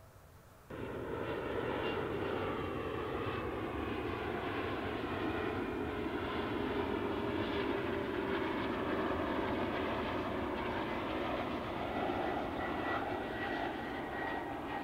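Jet airliner flying overhead on its landing approach: steady engine and rushing-air noise with a faint high whine on top. It cuts in abruptly under a second in.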